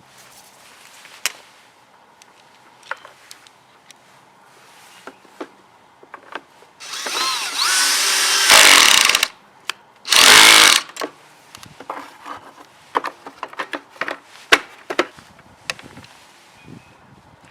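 Electric drill run in two bursts, a longer one that spins up and holds for a couple of seconds, then a short one, amid scattered clicks and clatter of tools and parts being handled.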